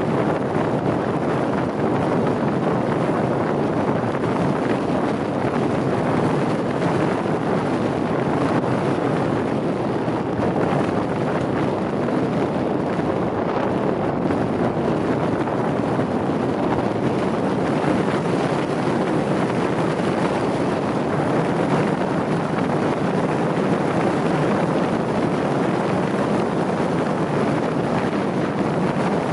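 Steady wind rushing over the microphone of a camera moving along the track, with no engine note standing out.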